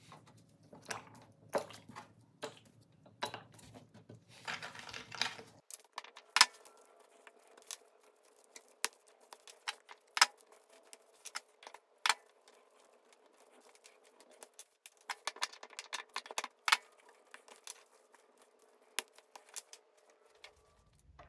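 Small plastic toy-truck wheel hubs and rubber tyres being handled and taken apart: scattered sharp clicks and taps as the pieces are gripped and set down on a hard bench, with stretches of rubbing in the first few seconds and again in the middle.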